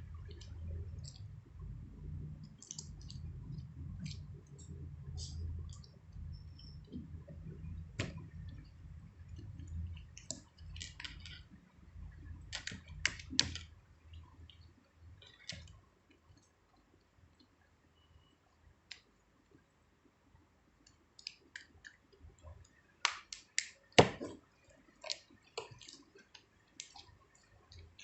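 Small jewellery pieces and their packaging being handled: scattered light clicks and taps, with a low rumble of handling in the first half and a cluster of sharper clicks near the end.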